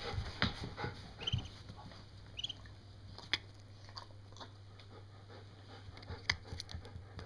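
White duckling pecking and pattering close by: scattered light taps and clicks of its bill and feet on a wooden floor, with two short high peeps in the first few seconds.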